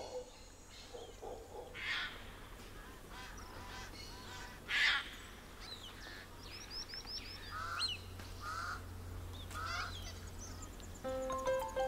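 Wild birds calling: a couple of harsh squawks, the loudest about five seconds in, among quick repeated chirps and short trills.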